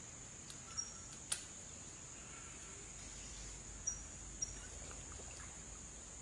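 Faint, steady high-pitched insect drone of a mangrove swamp, with a few short high chirps and a sharp click about a second in.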